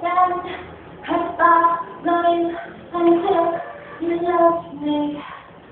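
A single voice singing a pop melody in short phrases of held notes, about six of them with brief gaps between.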